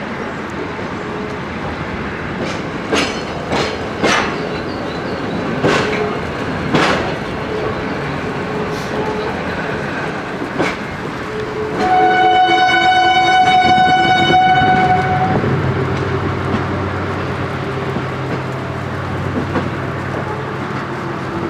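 Passenger train running, heard from a carriage window: the wheels knock sharply over rail joints several times, and about halfway through the locomotive's horn sounds one long blast of about three seconds.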